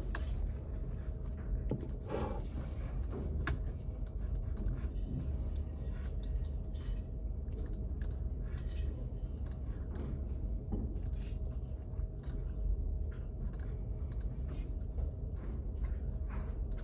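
Study-room ambience: a steady low hum with a faint steady tone over it, and many small scattered clicks and taps from someone working at a desk.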